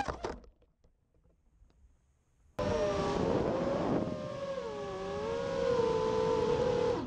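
FPV racing quad's brushless motors and propellers: a brief burst as the quad strikes a net, then near silence, then a little over two and a half seconds in the motors start up suddenly and whine steadily, the pitch swooping up and down with the throttle over a rush of propeller noise.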